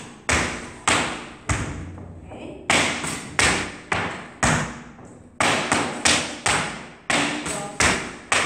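Tap shoes' metal taps striking a hard floor during a tap turn: about fifteen sharp, separate taps at roughly two a second, each ringing briefly in the room, with a short pause after the first few.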